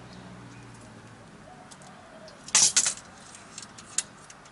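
Workshop handling clatter as parts and tools are moved: a quick cluster of sharp clacks about two and a half seconds in, then a single click near the end.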